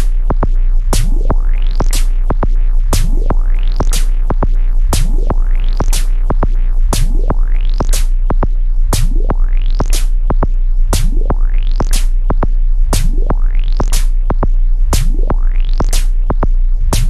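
Electronic music from a Eurorack modular synthesizer and a Korg Volca Drum: drum-machine kick and snare hits over a steady deep bass tone, with a synth sweep rising in pitch about once a second.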